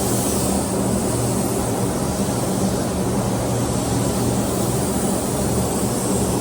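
Steady, loud air hiss over a low droning hum from auto-body paint-shop air equipment, unbroken throughout.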